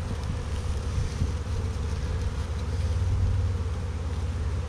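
Swarm of honeybees buzzing in a steady hum around the microphone, with low wind rumble on the microphone.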